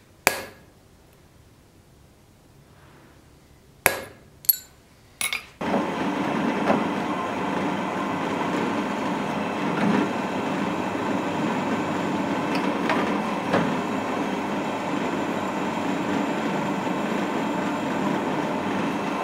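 Hammer striking a punch held on a small steel piece on an anvil: one ringing blow, then three more a few seconds later. After that a bench drill press runs steadily as its twist drill bores through the steel piece clamped in a machine vise.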